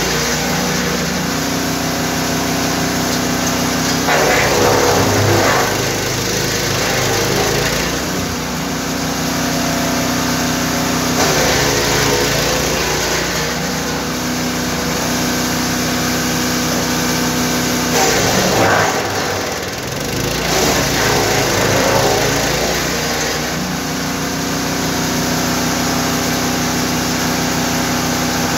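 GTM GTS 900 wood chipper's 9 hp engine running steadily. About four times its note dips and recovers under load while a rough chipping noise rises as wood is fed through and shredded.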